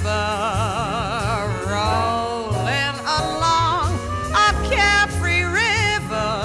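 Swing-style jazz band music: a lead melody with wide vibrato over bass notes that change every second or so, with no lyrics sung.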